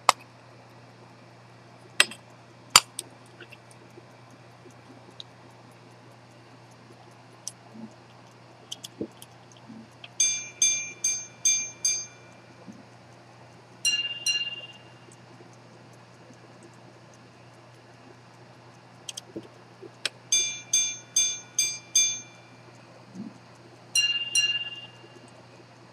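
Antique minute-repeater pocket watch striking the time on its gongs: a run of about five quick, evenly spaced metallic chimes, then a single chime of a different pitch. The sequence plays twice, with two sharp clicks from working the mechanism near the start.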